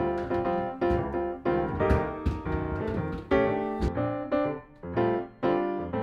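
Background music led by a piano, played as a run of struck notes and chords.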